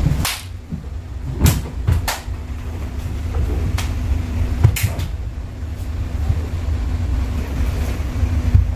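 A few sharp snaps and thumps from the strikes and steps of a taekwondo pattern performed barefoot on a wooden floor, the strongest about a second and a half and nearly five seconds in, over a steady low rumble.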